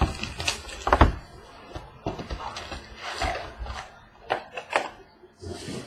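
Irregular knocks, clicks and rustling from a cardboard trading-card box and its foil packs being handled and opened, with a louder knock about a second in.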